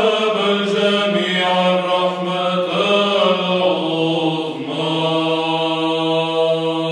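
Byzantine chant sung in Arabic: a troparion in the third tone, with the melody moving over a steady held drone (ison). From about five seconds in, the voices settle onto long held notes of the closing phrase.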